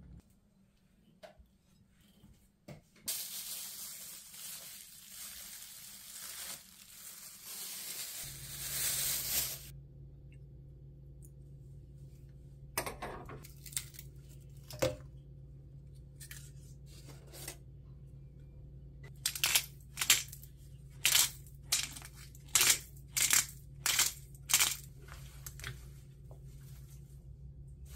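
Kitchen sounds: a few seconds of hissing rush, then a steady low hum from the induction hob, and later a quick series of about ten sharp clicks and knocks, the loudest sounds.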